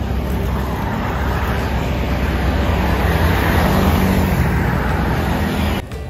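Highway traffic: truck engines and tyre noise rising to a peak about four seconds in, then easing, cut off suddenly just before the end.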